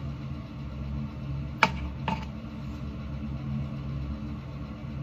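Steady low mechanical hum, with two short clicks about a second and a half and two seconds in.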